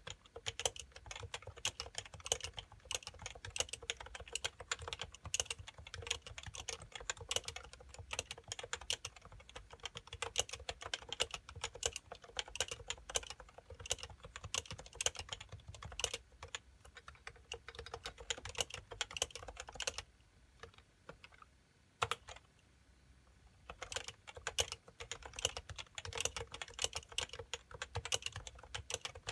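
Happy Hacking Keyboard Professional 2 with 45 g uniform Topre electrostatic capacitive rubber-dome switches being typed on in a fast, continuous run of keystrokes. About two-thirds of the way through, the typing stops for about three seconds, with a single keystroke in the gap, then picks up again.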